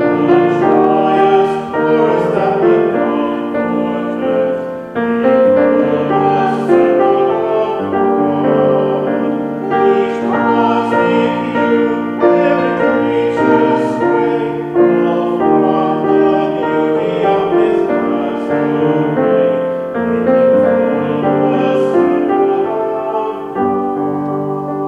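Slow piano music with held notes and chords that change about once a second. It gets quieter near the end.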